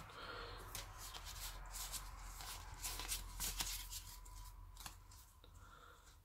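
Pokémon trading cards handled and shuffled in the hands: faint quick flicks and rustles of card stock that die down near the end.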